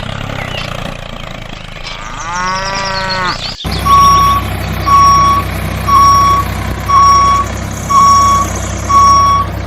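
A cow moos once, a call that rises and falls over about a second. After an abrupt cut comes a vehicle's reversing alarm, beeping loudly about once a second over a low idling engine.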